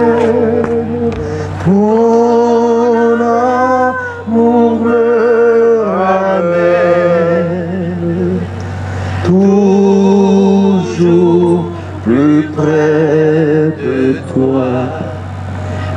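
A slow hymn sung by male and female voices into microphones, with long held notes and short breaks between phrases. A steady low hum runs underneath.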